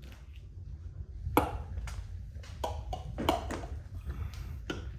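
A series of sharp taps and clinks, about seven in all, each ringing briefly, the loudest about a second and a half in.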